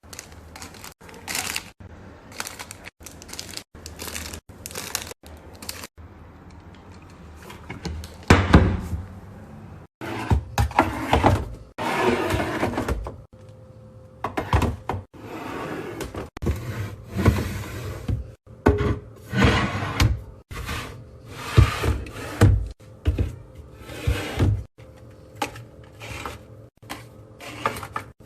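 Household items and containers being handled and set down during organizing: a run of knocks, thuds, rustles and clatter, broken into short snippets with abrupt cuts.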